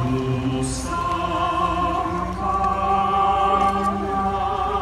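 Voices singing in chorus, long drawn-out notes that change pitch every second or two.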